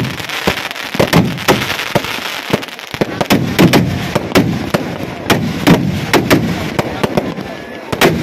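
Fireworks packed into a Ravana effigy going off: an irregular string of sharp bangs, about two or three a second, over a continuous crackle and hiss.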